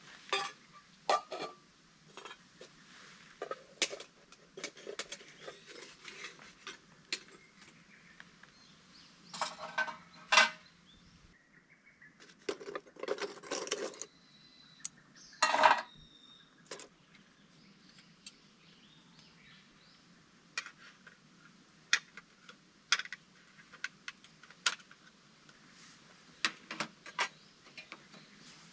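Scattered sharp clinks and short rattles of metal camp gear as a small steel tabletop barbecue grill is set up and loaded with charcoal, the loudest clatters about ten and fifteen seconds in.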